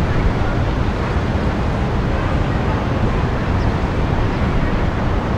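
Midtown Manhattan street traffic heard from eleven storeys up: a steady, even rumble of engines and tyres, with light wind.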